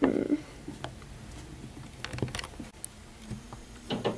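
Light, scattered clicks and taps of plastic Littlest Pet Shop toy figures being handled and set down on a felt base by hand, with a soft rustle at the start.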